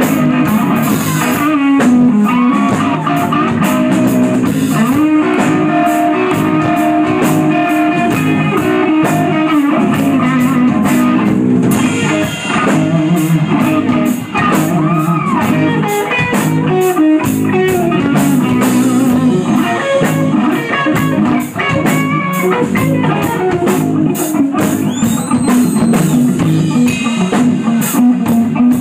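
Live rock band: loud electric guitar playing a riff with string bends over a drum kit keeping a steady beat.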